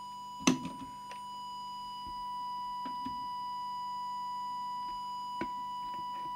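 Steady test tone from an audio oscillator held up to a CB radio's microphone to set its FM transmit deviation, growing slightly louder about two seconds in. A sharp click about half a second in and a few faint ticks later.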